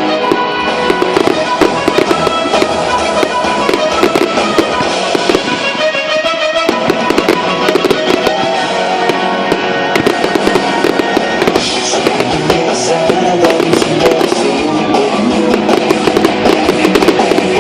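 Fireworks display: a dense run of crackling pops and bangs, mixed with loud pop music.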